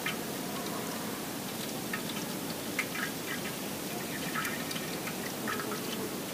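Mackerel tuna frying in a pan of oil, sizzling steadily with scattered small pops and crackles of spattering oil.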